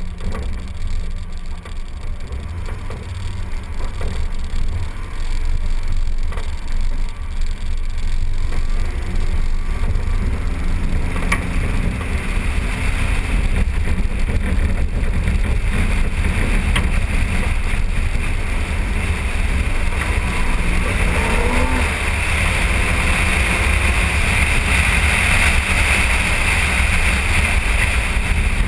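A 2012 Jeep driving on a gravel road, heard from a hood-mounted camera: a steady low wind rumble on the microphone over engine and tyre noise. A rushing hiss grows louder partway through.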